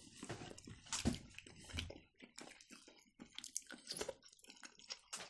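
Faint close-miked eating: ramen noodles in broth being slurped and chewed, a steady string of small wet clicks and smacks.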